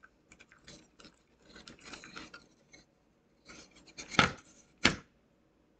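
Hands pressing and rubbing black tape along the edge of a wooden board, light scraping and rubbing with two short, sharper sounds about four and five seconds in.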